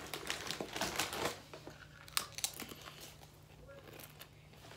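Plastic chip bag crinkling for about the first second, then a few scattered sharp crackles and crunches as chips are chewed.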